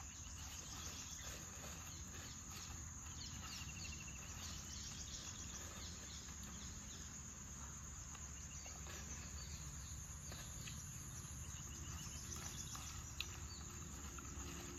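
Steady high-pitched drone of insects, with faint chirps now and then and one sharp click about thirteen seconds in.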